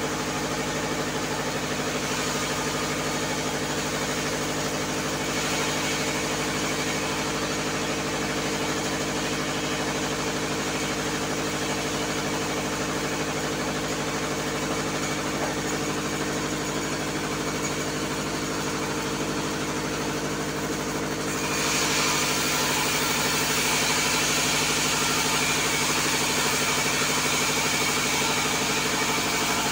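Bandsaw mill running with a steady mechanical drone while a log is fed through the blade. About two-thirds of the way in, a louder, brighter hiss of the blade cutting into the wood joins and carries on.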